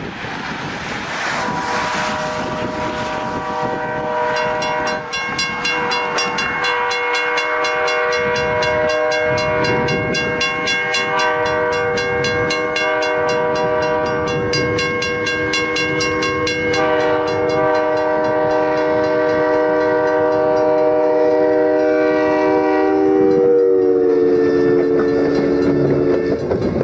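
Train horn on a railway snowplow train blowing one long, continuous chord as it approaches and passes, the chord dropping in pitch near the end as the train goes by. Through the middle a bell clangs rapidly, and near the end the rush of thrown snow and rumble of the passing train come in.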